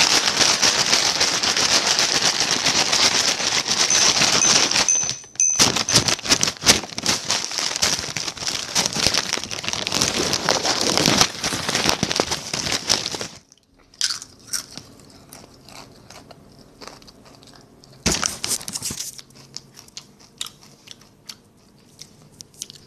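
A hand rummaging in a crinkly chip bag: loud crackling and crinkling of the bag, with a short break about five seconds in, then much quieter scattered crinkles and one brief loud rustle.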